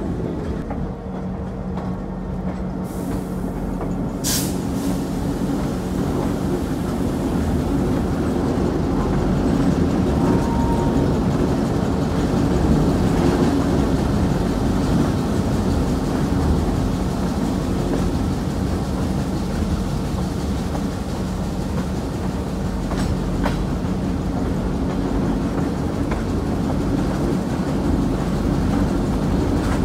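California Western Skunk Train running along the track, heard from aboard: a steady rumble of wheels and running gear with a low hum. There is a sharp click about four seconds in.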